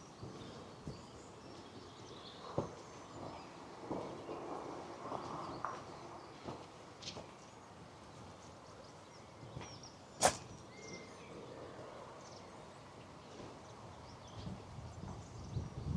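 Footsteps of a person walking, heard as irregular soft knocks, under faint outdoor birdsong with scattered high chirps. About ten seconds in, a single sharp click stands out as the loudest sound.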